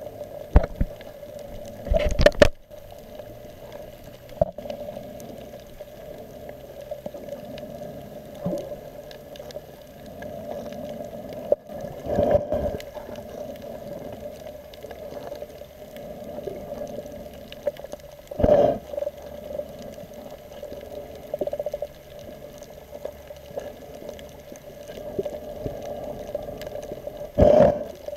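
Muffled water noise picked up by an underwater camera in its housing: a steady low drone with a few short, louder rushes of water, about 2 seconds in, twice in the middle, and near the end.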